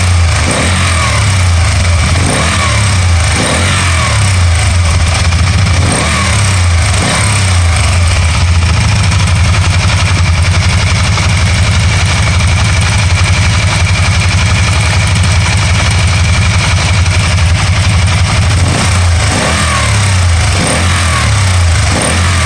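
Can-Am Spyder RT's V-twin engine running steadily, its misfire having cleared up by itself. Its pitch rises briefly a few times near the start and again near the end.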